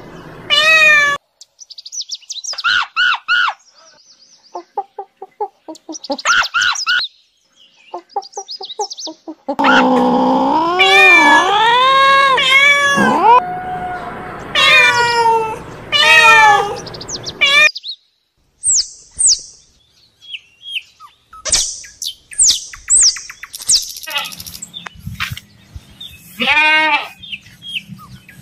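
Domestic cats meowing, a string of separate meows of varying pitch, one long and wavering. Later comes a run of short high chirps, then one more meow near the end.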